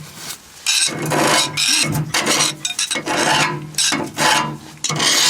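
Hand file scraping in repeated strokes, about one a second.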